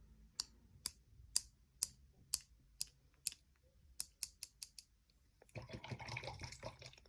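Paintbrush loaded with watery watercolour being tapped to spatter drops of paint onto the picture: sharp light taps about twice a second, then a quicker run of taps, followed by a brief rustle near the end.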